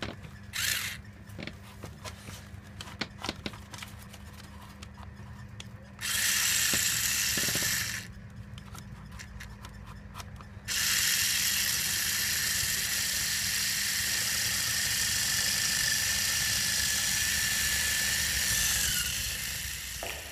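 Small electric motor spinning a homemade pen-tube drive shaft that turns an RC truck axle and its wheels. It runs briefly, then runs steadily for about eight seconds, a high whirring with a steady whine that sags slightly just before it stops. Light clicks and taps come before it.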